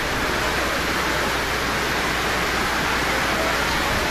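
Heavy typhoon rain pouring down in a steady, even hiss.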